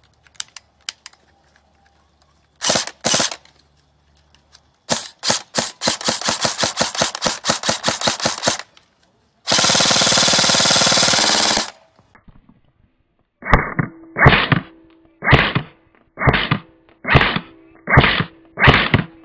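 Airsoft electric rifle (AEG) shooting BBs through a muzzle tracer unit: two single shots, then a rapid string of shots and a sustained full-auto burst. Near the end come slower, spaced shots about one a second, each longer and duller than the earlier ones.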